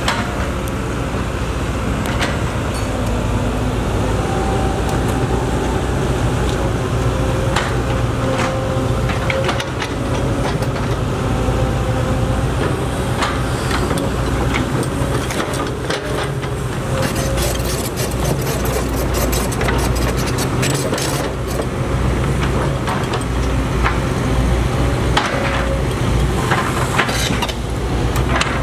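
Caterpillar 312C excavator's diesel engine running steadily under load, with a faint whine that wavers up and down. Its bucket knocks and cracks against a tree stump, with sharp knocks coming thick and fast in the second half.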